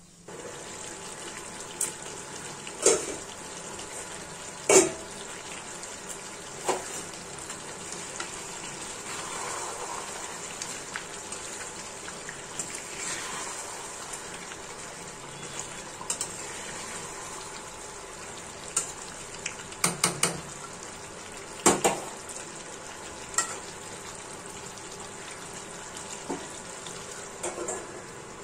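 Chicken and potato curry sizzling in a steel kadai on a gas burner, with a steel ladle stirring and clinking sharply against the pan a dozen or so times. A steel lid is set on the pan near the end.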